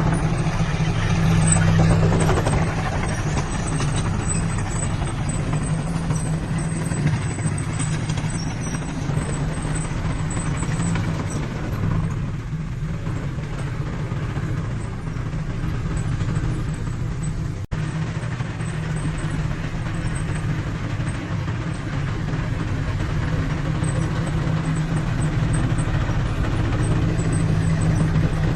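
Heavy diesel engine of earthmoving machinery running steadily under load, with a momentary dropout about two-thirds of the way through.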